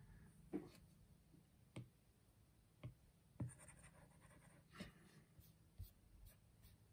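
Faint taps and scratching of an Apple Pencil tip on an iPad Pro's glass screen while scribbling. There are about six light taps, roughly a second apart.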